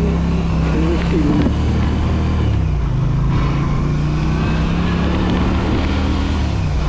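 Motorcycle engine accelerating under way, its note dropping at an upshift about two and a half seconds in, then climbing steadily to another upshift near the end.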